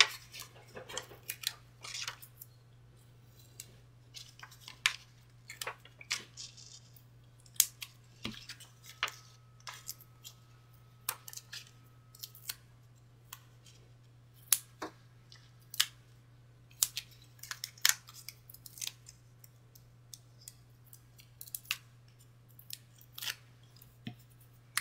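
Irregular crisp clicks and crinkles of small paper pieces being handled, peeled and pressed onto a card, as release paper comes off adhesive foam pieces to pop up die-cut trees.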